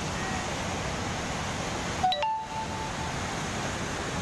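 Steady rushing noise of a fast, muddy floodwater torrent. About two seconds in, a brief ding-like chime of a few clear tones sounds, one held for about half a second, while the water noise briefly dips.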